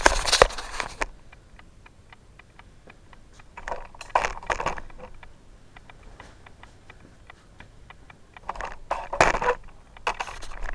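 Short bursts of light clattering and rattling, four times, with faint scattered ticks between them.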